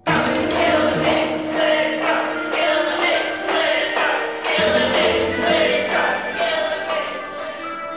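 Music that starts suddenly: a choir singing over a steady driving beat of about two hits a second, easing off toward the end.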